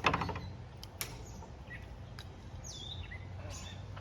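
Bird chirping in short falling calls, with a sharp crackle right at the start and a few light clicks.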